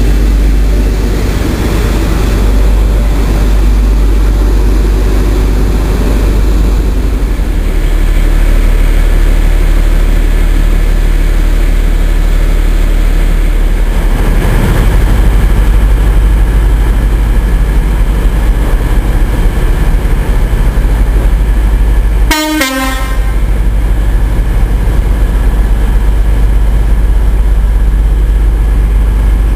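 Class 43 HST power cars' Paxman Valenta diesel engines running loudly, with a train horn sounding. A short crackling break cuts through the sound about three quarters of the way through.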